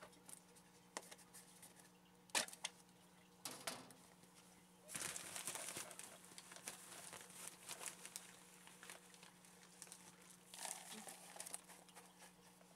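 Faint handling noises: a few sharp clicks and knocks in the first few seconds, then a few seconds of rustling and crinkling as a plastic box and aspen-shaving bedding are handled, with another short rustle near the end. A faint steady hum runs underneath.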